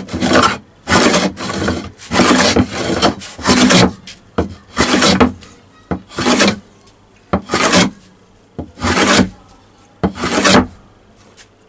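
Wooden-bodied hand plane (randa) shaving a rough wooden board in repeated push strokes, close together for the first few seconds and then about one every second and a half. The blade is set shallow, so it brings off fine sawdust-like shavings.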